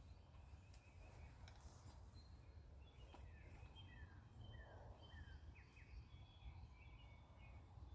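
Near silence: low outdoor background rumble with faint bird calls, a run of short falling chirps in the middle, and a few faint clicks.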